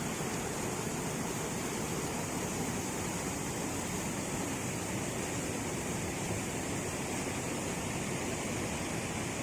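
Steady rush of a waterfall, falling water pouring without a break.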